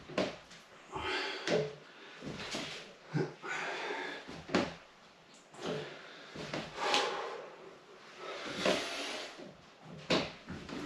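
Heavy breathing and strap movement during a TRX single-arm rotational pull: short forceful exhalations and rubbing of the suspension straps come irregularly, about one every second or two, with each rep.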